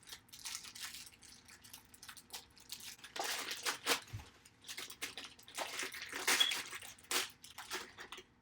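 Plastic toy wrappers crinkling and tearing as they are handled and opened by hand, in irregular rustles that come in clusters.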